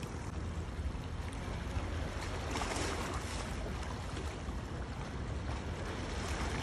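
Steady wind rumbling on the phone's microphone, with bay water lapping against shoreline rocks.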